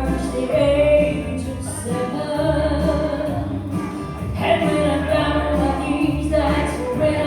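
A woman singing a country gospel song live, with held notes over a band accompaniment that keeps a steady bass line underneath.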